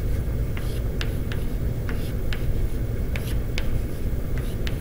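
Chalk on a blackboard: short sharp taps and strokes, roughly two a second at irregular spacing, as arrows are drawn. Under them runs a steady low room rumble.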